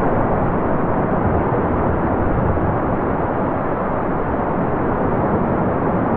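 Heavy ocean surf from large storm swells breaking on the shore: a loud, steady rushing roar with no separate crashes standing out.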